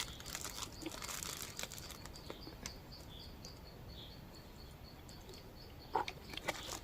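Faint high chirps repeating evenly, about four a second, from a small animal in the forest, over scattered small clicks and crinkles, with a sharper click about six seconds in.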